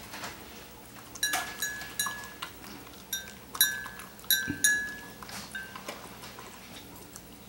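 A dog's food bowl clinking against the dog's muzzle and the floor as the dog licks and noses it while eating: a string of short clinks over a few seconds, each ringing briefly.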